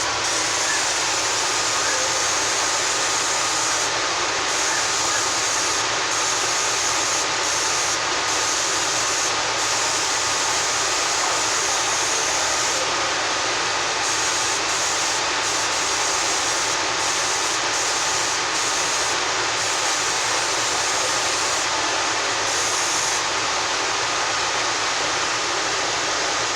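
Laser CNC engraving and cutting machine running: a steady, even whooshing noise from its fans and air, with a faint steady whine, unchanging throughout.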